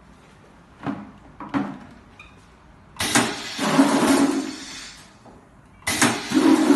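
Pneumatic piston filling machine running two fill strokes: each starts abruptly with a hissing rush as liquid is discharged from the nozzle, lasting about two seconds, the first about three seconds in and the second near the end. Two light knocks come about a second in, before the first stroke.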